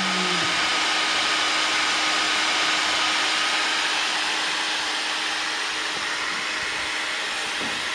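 Electric heat gun running, a steady blowing rush with a faint steady hum, shrinking heat-shrink tubing over a wire splice.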